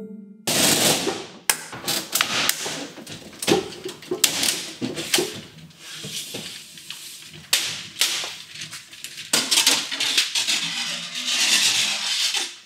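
A metal track-light rail being cut through at the ceiling: irregular rasping strokes and metallic clanks, starting about half a second in.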